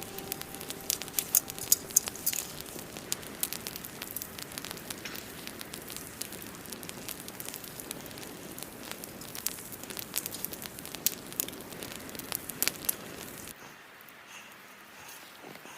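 Campfire crackling, with many sharp pops and snaps over a steady hiss, stopping abruptly about thirteen seconds in and leaving a quieter hush.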